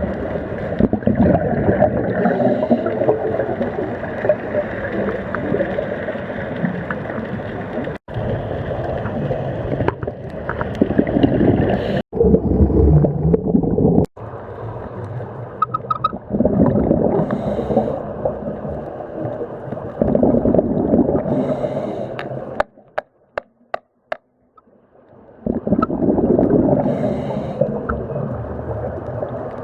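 Scuba regulator breathing heard underwater: loud rumbling, gurgling bursts of exhaled bubbles, with a short hiss of inhaling through the regulator every several seconds. The sound drops out suddenly a few times, and goes almost silent for a couple of seconds near the end apart from a few clicks.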